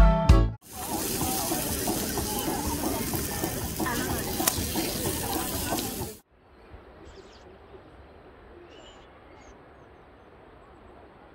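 Steady rushing of flowing river water with voices mixed in. It cuts off abruptly about six seconds in to quiet outdoor ambience with a few faint, short bird chirps. Background music ends in the first moment.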